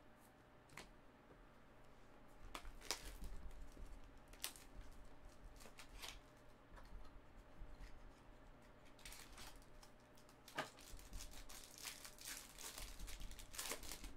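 Silver foil wrapper of a Topps Museum Collection trading-card pack being torn open and crinkled by hand: scattered crisp crackles at first, growing into a dense run of crinkling in the last few seconds.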